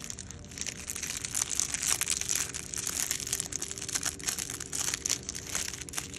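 Thin clear plastic wrap crinkling as it is peeled and unwound from a metal fountain pen, a continuous irregular crackle.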